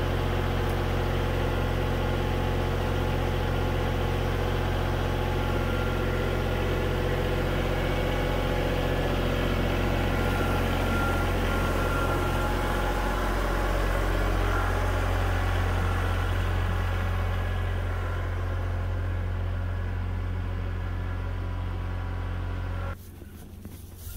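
A vehicle engine running steadily at an even pitch. It is slightly quieter over the last few seconds and cuts off abruptly near the end.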